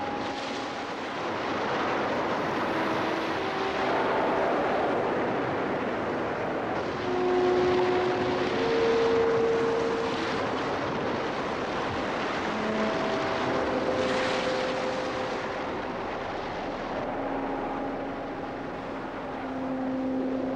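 Heavy storm surf breaking and churning against a rocky shore: a dense, steady rush of water and wind that swells with the larger breakers, around 2, 8 and 14 seconds in. Faint, long held notes at changing pitches sound over it, like a slow melody.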